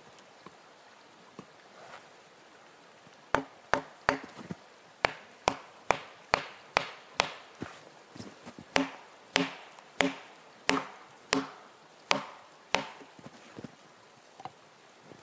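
A stone tool striking again and again: about twenty sharp blows at roughly two a second, each with a short ring. The blows start about three seconds in and stop about two seconds before the end.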